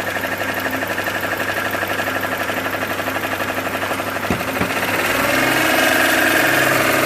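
Car engine running with a fast, even knocking, the transmission noise that came after a rebuilt torque converter was installed; the flex plate has been checked and is not bent. Two sharp clicks about four seconds in, then the engine revs up and its pitch rises.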